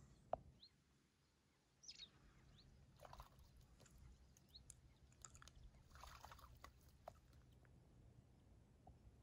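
Near silence with faint splashes from a Harris hawk wading and dipping in shallow lake water, about three and six seconds in, and a few short, high, rising chirps from small birds.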